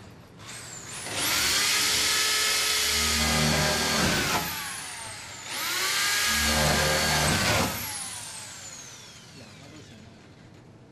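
Corded electric drill driving screws through a metal trim strip into a wall panel. It runs twice, each time for two to three seconds. Each run spins up to a high whine, and the pitch falls away as the drill winds down after the trigger is let go.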